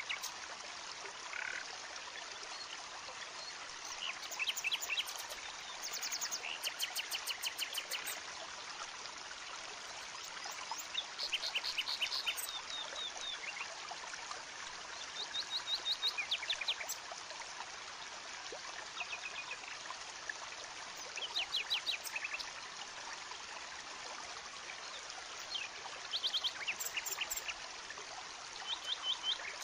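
Forest wildlife calling: short trains of rapid, high-pitched clicking pulses, repeating irregularly every few seconds, over a steady hiss.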